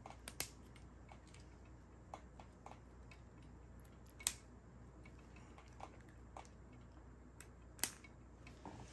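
Faint clicks of 3D-printed plastic clips being pressed onto the plastic frame of a spiral tree, with two sharper snaps about four seconds in and near the end.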